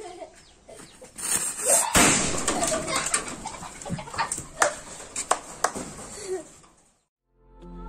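Homemade match-head firecracker going off: the burning fuse fizzes and flares, then it bursts with a sharp bang about two seconds in, followed by several seconds of crackling with scattered sharp pops as the match heads burn out.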